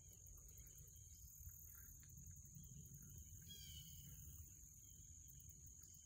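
Near silence: faint outdoor lakeside ambience with a low rumble and a steady faint high-pitched drone. A short bird chirp of a few quick notes comes about three and a half seconds in.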